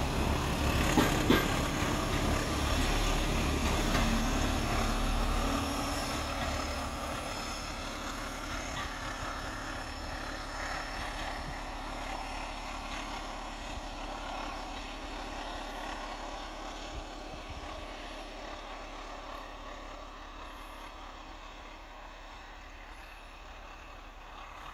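Heritage diesel locomotive drawing a train of coaches away, its engine running under power with a deep rumble and a couple of clicks from the wheels about a second in. The sound fades steadily as the train recedes.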